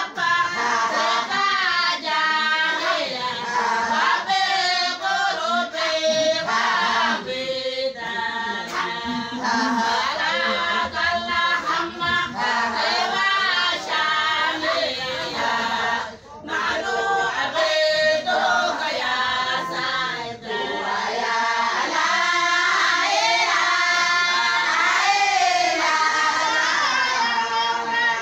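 A group of women singing together in Somali Bantu style, many voices at once, with a brief break about halfway through.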